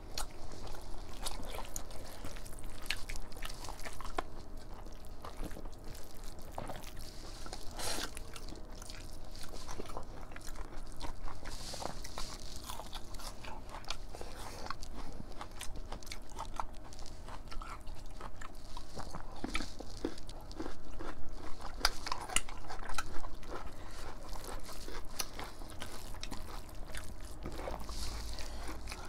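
Eating by hand: chewing, biting and wet mouth sounds from two people, with irregular clicks and smacks as fingers mix rice and mutton curry on the plates.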